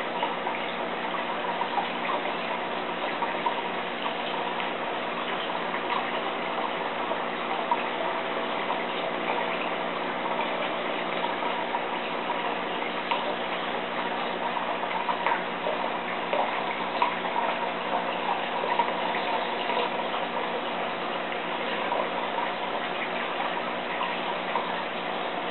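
Aquarium equipment running: a steady trickle of water with a constant low hum, and small clicks scattered throughout.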